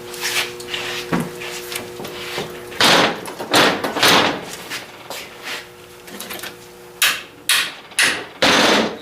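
Hammer blows on a rusted U-bolt stud clamped in a vise, trying to drive it out: three sharp strikes about three seconds in, then four more about half a second apart near the end.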